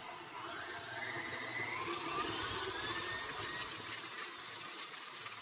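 Stand mixer running, beating butter, cream cheese and powdered sugar into frosting. Its motor whine rises in pitch over the first couple of seconds.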